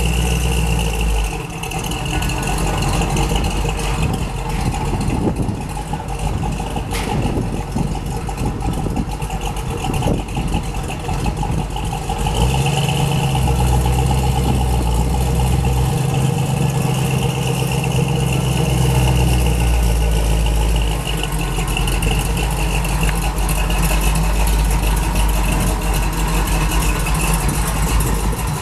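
Plymouth 'Cuda's V8 engine running at a low, steady idle as the car creeps past at walking pace; it grows louder and deeper for several seconds in the middle.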